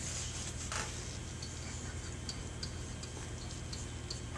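Stylus tapping and scratching on an interactive whiteboard screen while writing: a knock about a second in, then light irregular ticks about twice a second, over a low steady room hum.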